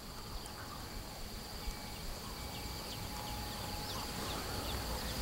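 Outdoor insect drone: a steady high-pitched buzz, with short falling chirps scattered through it and a low rumble underneath.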